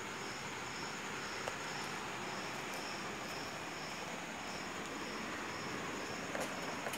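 Steady outdoor background hiss with a high-pitched pulsing about twice a second, typical of an insect such as a cricket chirping.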